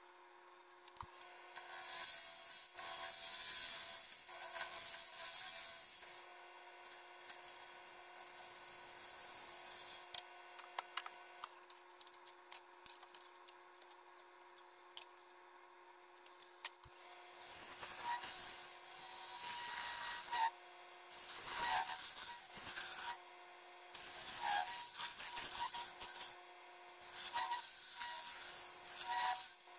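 Wood lathe running with a steady hum while a turning tool cuts a spinning wood blank, a scraping hiss of shavings coming in spells: for a few seconds near the start, then repeatedly through the second half. In between it goes quieter, with a few light clicks.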